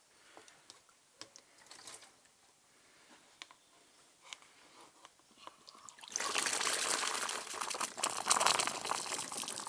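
A few faint plastic clicks, then about six seconds in a stream of antifreeze starts pouring and splashing out of the plastic water-filter housing into a container and keeps running to the end.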